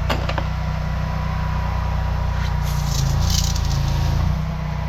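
High-pressure drain jetter's engine running steadily with a low hum. A couple of sharp clicks come just after the start, and about three seconds in the hum swells with a brief hiss for about a second before settling back.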